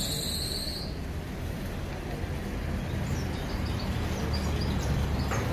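Outdoor street ambience: a steady low rumble of traffic and passers-by. A high whistle-like tone cuts off just under a second in, and faint short high chirps come in the second half.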